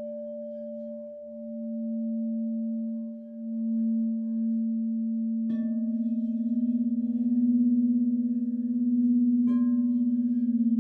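Crystal singing bowls ringing in long, steady, overlapping tones that waver in loudness. Two more bowls are struck, about five and a half seconds in and again near the end, each adding a fresh tone.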